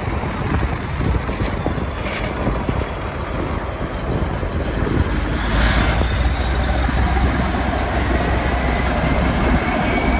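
Diesel engine of a CP Series 1400 locomotive running as it hauls cereal hopper wagons past. Its low rumble grows louder about halfway through as the locomotive draws level, then holds steady.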